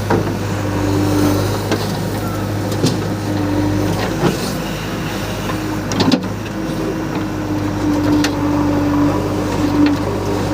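Heavy diesel engine running steadily under load, with a higher tone that comes and goes and sharp metallic knocks about six times, as from a backhoe loader digging and loading earth.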